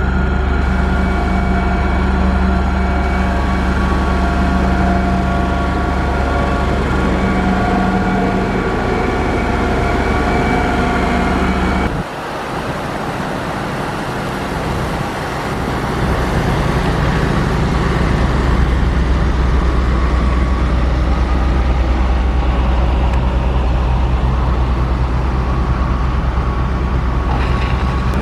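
Diesel engine of heavy construction machinery running steadily with a constant pitch. About twelve seconds in, the sound changes abruptly to a rougher, deeper engine run that grows louder.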